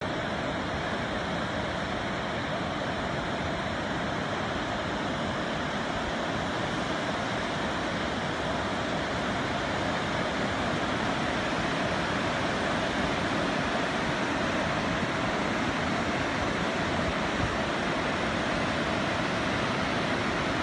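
Steady rush of a fast mountain river, the Neelum's whitewater rapids pouring over boulders, growing slightly louder about halfway through.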